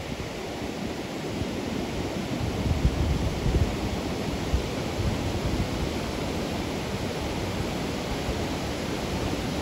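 Steady rushing of river water pouring over a low dam and churning in the white water below, with wind buffeting the microphone.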